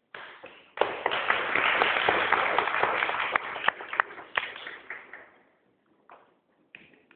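A small audience clapping and applauding, starting about a second in and dying away after about five seconds.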